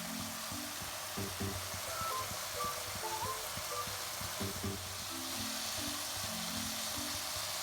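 Background music with a steady sizzle of food frying in a pan underneath.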